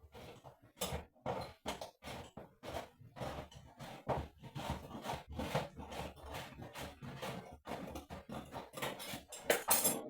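Rapid, irregular knocking and clattering, several knocks a second, loudest near the end.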